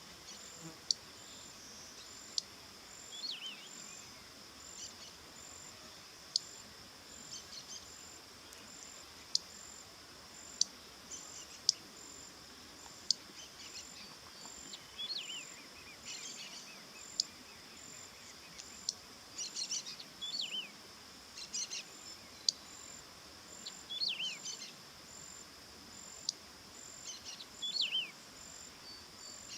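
Short bird call phrases that slide downward in pitch, repeating every few seconds. Under them runs a steady high insect drone with evenly pulsing chirps, and there are scattered sharp ticks.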